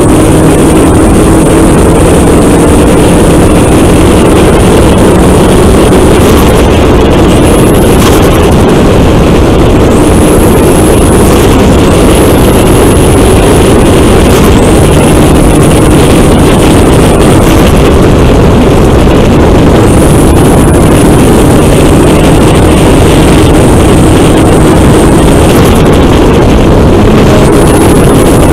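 Volkswagen Golf GTI Mk4's 1.8-litre turbocharged four-cylinder engine running steadily at speed, almost buried under heavy wind and road noise on the car-mounted microphone.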